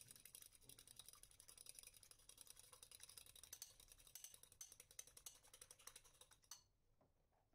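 Faint, rapid clicking of a fork's tines against a bowl as eggs are beaten, stopping suddenly about six and a half seconds in, with a couple of single clicks after.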